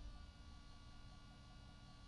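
Near silence: a faint low rumble with a faint steady hum, the lull between truck passes in a parking structure.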